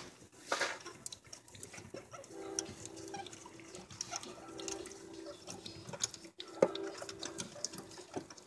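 Scattered light clicks and taps of a socket wrench and extension turning a spark plug in its plug well, with a faint hum coming and going.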